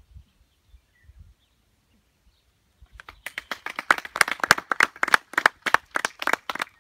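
Hand clapping close by, a few people applauding, starting about three seconds in as quick, irregular claps. Before it, a few faint low thuds of hooves on the sand.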